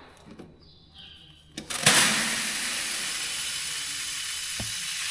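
Sorghum seed pouring out of a planter hopper into a plastic tub: it starts suddenly about two seconds in, then runs as a steady hissing rush. There is one low thump near the end.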